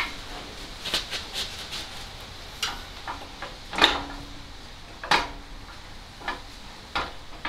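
Irregular metallic clinks and knocks of tools and metal parts being handled during engine-mount fitting work, about a dozen strikes. The loudest comes just under four seconds in, and a few leave a short metallic ring.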